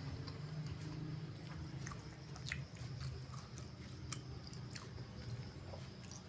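Close-miked chewing of spicy chicken liver and gizzard, with wet mouth smacks and small clicks every half second to a second, over a steady low hum.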